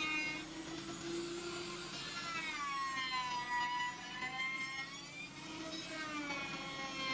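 Electric woodworking power tool's motor whining. Its pitch sags about two seconds in and climbs back up near the end.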